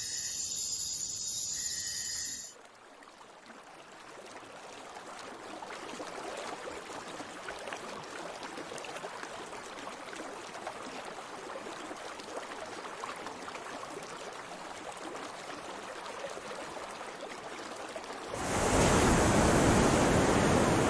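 Rainforest insects buzzing in a chorus of steady high tones, cut off after about two and a half seconds by a steady rushing noise of water. About 18 seconds in, the water noise jumps much louder and deeper.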